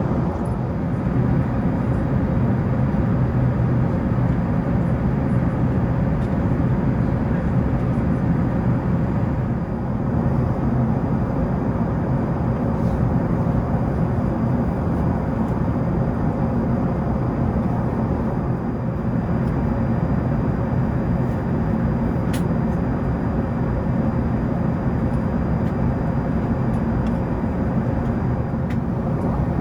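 Steady cabin noise inside an Airbus A380, a constant low rumble with a faint hum running through it.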